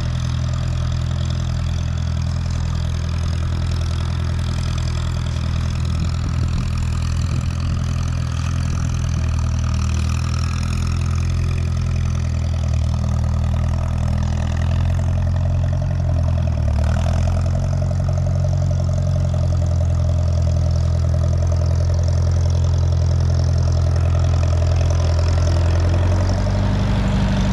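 Allis Chalmers Model D road grader's spark-ignition engine running steadily at low speed, with a brief dip in pitch about two-thirds of the way through.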